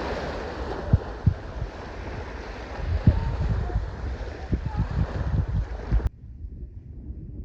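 Wind buffeting the microphone in gusty low thumps over a steady rush of surf, cutting off suddenly about six seconds in.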